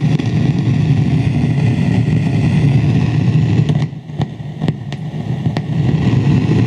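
Loud staticky noise with a low rumble and crackle from a Loewe TA 4000 receiver with its phono input selected, mostly in the right channel: the sign of a faulty phono preamplifier. About four seconds in it dips for a second or so with a few clicks as a front-panel knob is turned, then comes back up.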